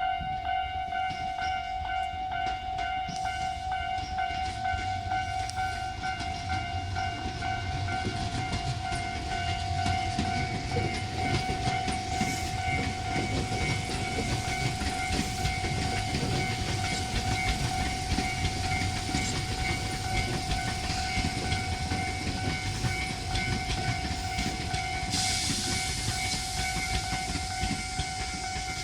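Japanese level-crossing warning bell ringing steadily in a fast repeating ding, while a Tobu 10000-series electric train rolls slowly over the crossing with a low rumble and wheel clatter that build after the first several seconds. A hiss starts near the end.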